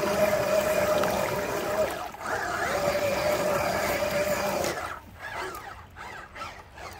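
Small electric motor of a radio-controlled model machine whining at a steady pitch in two runs, with a brief break about two seconds in, then dropping away to quieter, uneven noise near the five-second mark.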